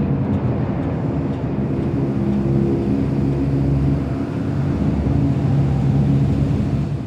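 Imperial AT-AT walker idle sound effect: a steady low mechanical hum and rumble with droning tones, fading out at the very end.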